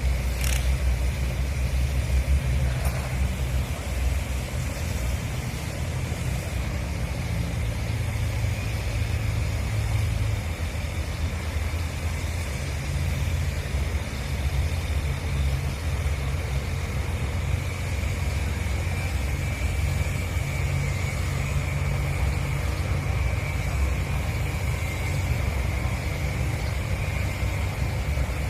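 Steady low engine drone with a faint steady high whine. Its deeper tones shift slightly about ten seconds in.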